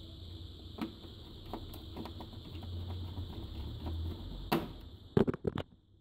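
Small clicks and knocks of a screwdriver and hands working on a TV's main board and metal chassis, over a steady faint hum. A single knock comes about four and a half seconds in, then a quick run of four or five sharp clicks, the loudest sounds, just before the end.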